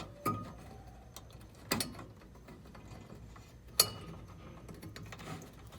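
Wire contacts being pushed into a plastic light-bulb connector housing: three sharp clicks a second or two apart, the last the loudest, with faint handling ticks between.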